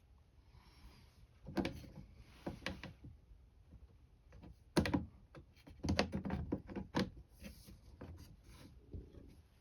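Irregular knocks, taps and rubbing as a camper window and its frame parts are handled and fitted into place. The loudest knock comes a little under five seconds in, followed by a quick run of taps over the next two seconds.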